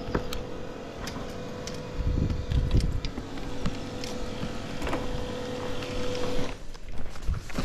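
A steady mechanical hum on one low pitch, cutting off suddenly about six and a half seconds in, with scattered light clicks and a few low thumps about two seconds in.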